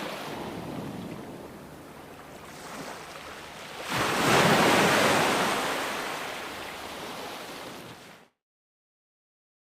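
Ocean surf washing on a beach, with a wave breaking about four seconds in and slowly fading away. The sound then cuts off suddenly to total silence.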